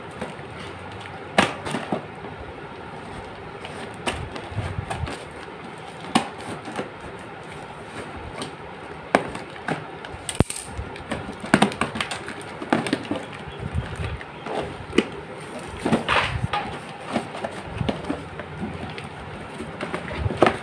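Scissors cutting through packing tape on a cardboard shipping box, and the tape and cardboard being torn open by hand: irregular sharp snips, crackles and rustles, busiest in the second half.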